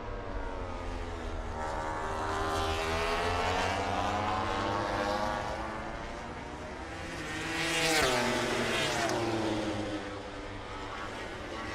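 MotoGP racing motorcycle engines at high revs, the engine note rising and falling as the bikes accelerate and brake. About eight seconds in, a bike passes close with a loud swell and a falling pitch.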